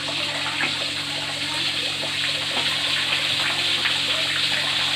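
Pieces of bird meat frying in hot oil: a steady sizzle with small crackles.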